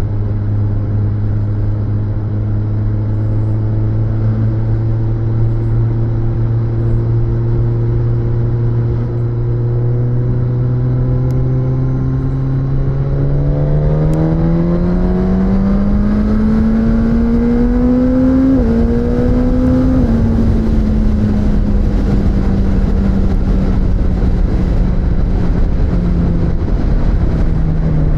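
Suzuki GSX-S1000's inline-four engine on the move, heard from onboard over wind and road rush. It holds a steady, slowly rising note, then pulls hard with a climbing pitch about halfway through. There is a quick dip at a gear change, then the revs fall away as the throttle is eased off.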